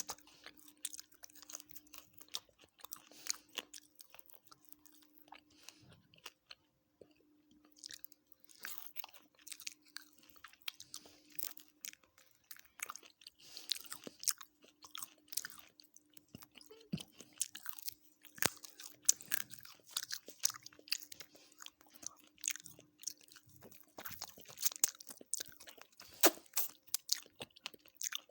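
A person chewing and crunching food close to the microphone, with irregular wet clicks and bites, over a faint steady hum.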